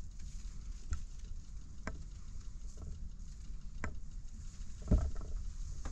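Handling noise from a camera being moved about in a wooden attic: faint clicks roughly once a second and one louder knock about five seconds in, over a low rumble.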